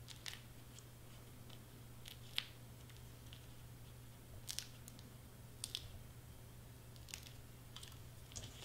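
Faint, scattered taps and crinkles of layered cardstock being handled and pressed together, about seven short clicks in all, the sharpest about two and a half seconds in, over a steady low hum.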